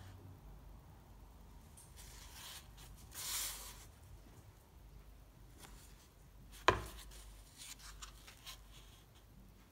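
Pages of a thick handmade-paper sketchbook being handled and turned: a papery swish about three seconds in, then a single sharp knock a little before seven seconds, followed by light rustling and small ticks.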